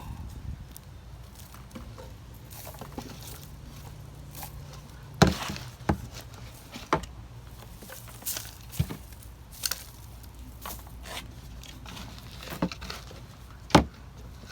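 Hands sorting through a dumped container of soil for potatoes: soft rustling with scattered sharp knocks, about eight in the second half, as potatoes are handled and set down.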